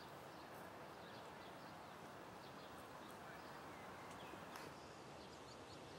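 Near silence: faint open-air park ambience, a low steady hiss with distant birds chirping faintly now and then, and one soft tick a little past the middle.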